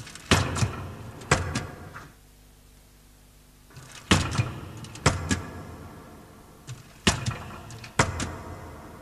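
A series of sharp knocks, several in close pairs about a quarter-second apart, each leaving a short ringing echo, with a pause of under two seconds after the first three.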